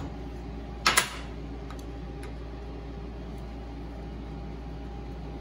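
A sharp metal-on-metal tap about a second in, on a bent bolt clamped in a bench vise as it is worked straight to take out a high spot. After it comes a steady low shop hum with a few faint ticks.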